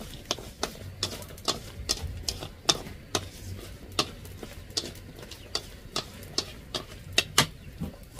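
A utensil stirring food in a pan: sharp taps and knocks against the pan at an uneven pace of two or three a second.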